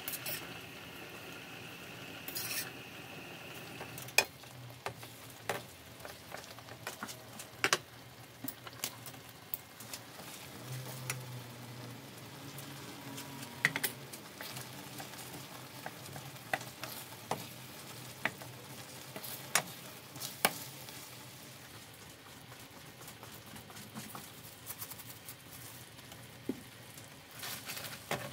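Creamy pasta sauce bubbling in a stainless steel skillet while spaghetti and scallops are stirred through it with a wooden spoon. The spoon knocks against the pan in scattered sharp clicks.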